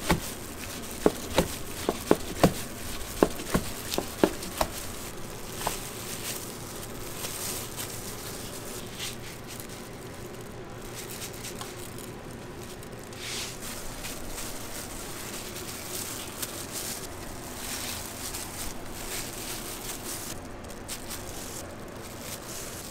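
Kitchen knife slicing through kimbap rolls, the blade knocking on a plastic cutting board about ten times in the first five seconds. After that come only faint handling sounds over steady kitchen room noise.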